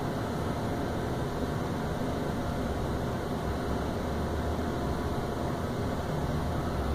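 Thyssen hydraulic elevator car descending, heard from inside the cab: a steady low hum with an even hiss.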